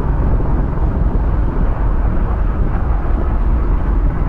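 Motorcycles riding on a road, heard through an onboard camera: a steady low rumble of wind and engine noise.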